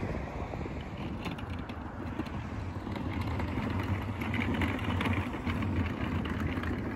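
Jet airliner engines heard at a distance, a low steady rumble with a hiss above it, growing louder about three seconds in.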